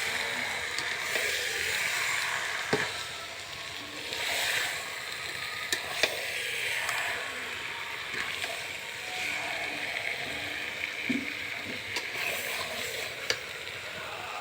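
Food sizzling as it fries in a pan: a steady hiss, broken by a few sharp clicks.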